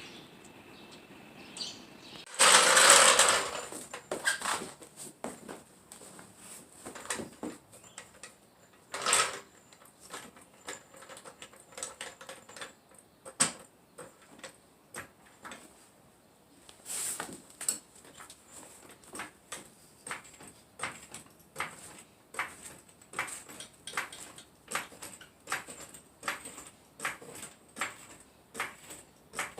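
A car jack being worked to raise the car: a burst of scraping noise a few seconds in, then from about halfway a regular run of clicks, about three every two seconds, as the jack is pumped or cranked.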